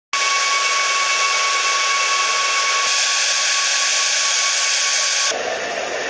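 Jet engine running with a loud, steady rushing noise and a high steady whine. Near the end it cuts abruptly to a different, duller engine noise.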